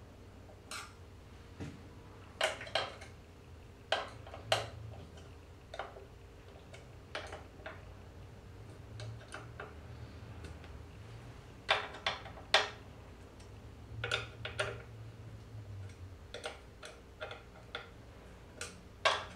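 Scattered sharp metallic clicks and clinks in irregular clusters as hand tools and hardware knock against the aluminium plates of a CNC router carriage being assembled by hand.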